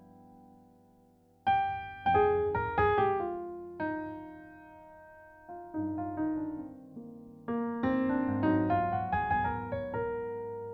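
Solo piano music: slow phrases of struck notes and chords, each note dying away, with a quiet pause at the start before the playing resumes about a second and a half in.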